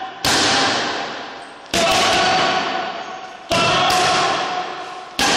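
Boxing gloves hitting focus mitts, four hard single punches about every second and a half, each smack followed by a long echo off the hall.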